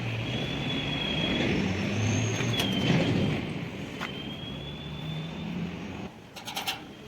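A passing motor vehicle: a steady rumble that grows to its loudest about three seconds in, fades, and stops abruptly about six seconds in.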